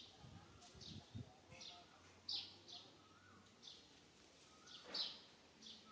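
A bird calling faintly with short, high chirps, about ten of them in irregular succession, the loudest about five seconds in.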